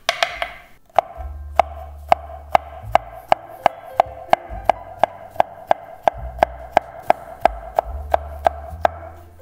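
Chef's knife chopping a red chili pepper on a thick wooden board: sharp, even knocks about three a second, over background music with a steady bass line.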